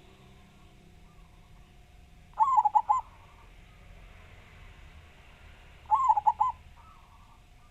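Zebra dove (perkutut) singing: two loud phrases of rapid cooing notes, about three and a half seconds apart, with fainter coos in between.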